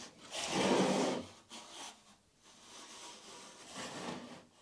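Teak drum scraping and rubbing on the wooden workbench as it is turned by hand, with a pencil scratching along its base as it marks a line. The loudest scrape comes in the first second, then the rubbing goes on more faintly.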